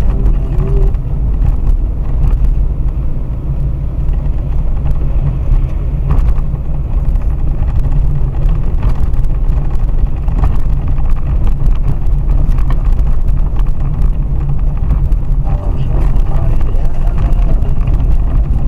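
Car driving over a rough, washboard-rutted road, heard from inside the cabin: a steady low rumble of tyres and engine, broken by many small knocks and rattles from the bumps.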